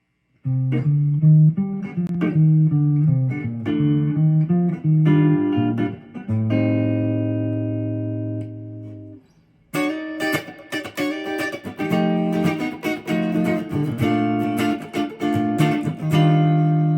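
1981 Ibanez Artist AR300 electric guitar played: picked notes and chords, a chord left ringing from about six seconds in until it is cut off near nine seconds, then busier, brighter strumming from about ten seconds on.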